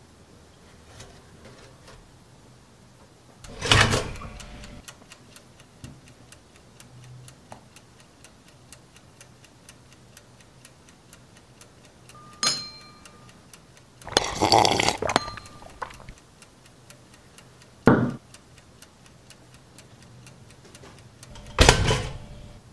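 Electric pop-up toaster: its lever goes down with a loud clack, it ticks steadily while it heats, and near the end it pops up with another loud clack. A few other clicks and a louder rustling burst come in between.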